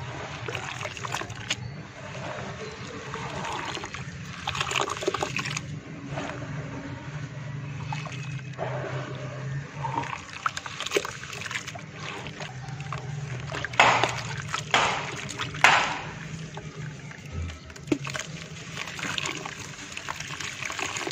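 Muddy water sloshing and splashing in a plastic bucket as feet and then hands stir it and squeeze and crumble wet red dirt, with wet squelching throughout. A few louder splashes come close together about two-thirds of the way through, over a low steady hum.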